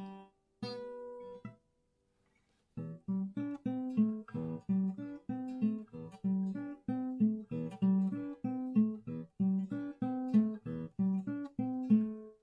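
Acoustic guitar: a chord rings out and dies away, and after a short silence steady rhythmic strumming starts, about two to three strums a second.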